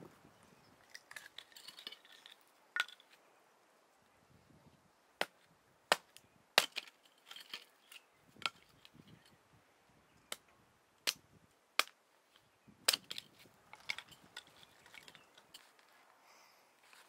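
Irregular sharp snaps and cracks, about fifteen spread unevenly through the stretch, with softer crunching and crackling between them.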